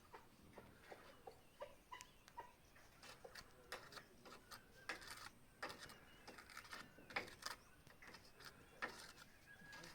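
Faint, irregular clicks and light taps, scattered at uneven intervals.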